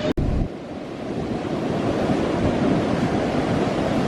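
Ocean surf breaking, with strong wind buffeting the microphone in a steady rush. There is a split-second dropout just after the start.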